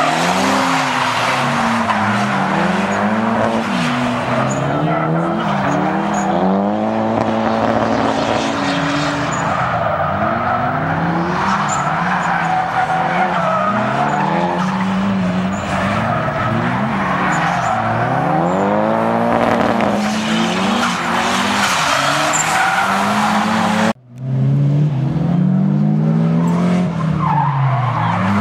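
Drift cars sliding on tarmac: engines revving up and down every second or two over continuous tyre squeal. After a brief dropout near the end, two engines are heard at once as two cars drift in tandem.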